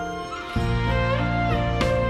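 Background music: an instrumental piece of held, melodic notes, with a low bass part coming in about half a second in and the music growing louder.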